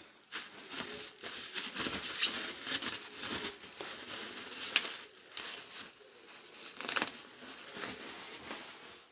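Irregular rustling and crinkling of packing material and cardboard as hands rummage through a box, with a few sharper clicks about 2, 5 and 7 seconds in.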